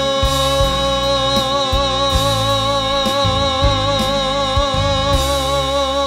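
A man's voice holding one long final note with a wide vibrato at the end of a Korean gospel song, over a backing track with a low pulsing beat.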